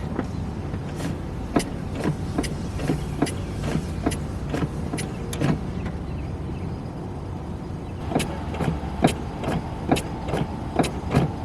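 Pontiac Firebird Trans Am's LS1 V8 idling steadily under the hood. Short, sharp clicks and knocks come every half second to second over the engine, and a faint steady tone joins about two-thirds of the way through.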